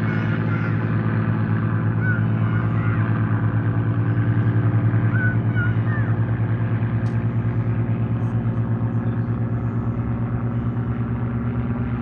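Spitfire piston engines droning overhead with a regular throb, growing loudest about four or five seconds in and then slowly fading as the aircraft fly away.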